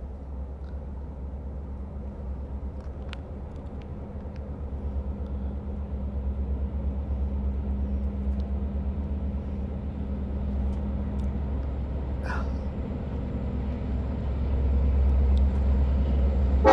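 Low, steady rumble of an approaching diesel freight locomotive, an SD70ACE with a 16-cylinder EMD 710 two-stroke engine, growing steadily louder as it nears.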